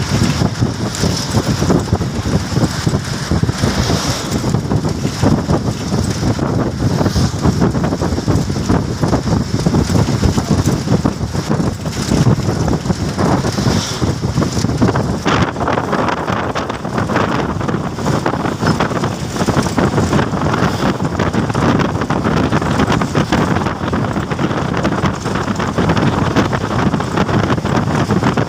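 Steady, loud rushing of wind buffeting the microphone, mixed with the noise of a moving vehicle on the road.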